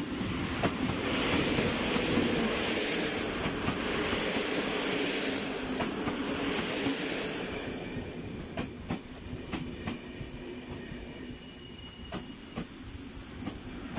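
EP07 electric locomotive passing close by as it pulls into the station, followed by its passenger coaches rolling past. The sound is loudest for the first half, then drops to a quieter rumble with sharp clicks of wheels over rail joints and a faint high squeal as the train slows.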